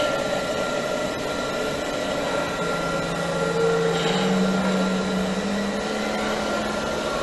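Model trains running on a miniature railway layout: a steady whirring hum, with a low tone joining about three seconds in and stepping up slightly in pitch about a second later.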